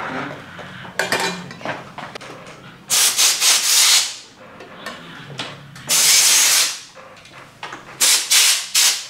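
Compressed-air blow gun on an airline hissing in three blasts of about a second each, blowing air into a rubber handlebar grip so it slides onto the bar without glue. Rubbing and handling noise comes between the blasts.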